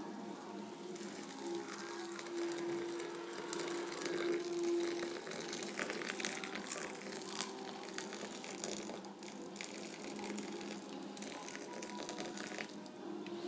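Kitchen handling sounds, with rustling, crinkling and small clicks, over a steady low hum. A stronger steady tone is held for a few seconds early on.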